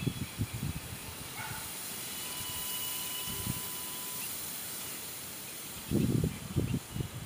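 Handheld colour smoke cracker hissing steadily as it burns and pours out smoke. Low, irregular rumbling bursts come in at the start and again near the end.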